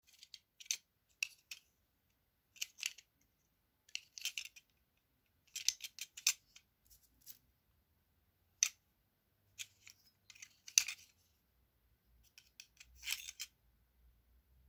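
Snap-off utility knife and a loose metal blade being handled: irregular short clicks and scrapes of the plastic slider and the thin steel blade as the blade is worked in and out of the handle.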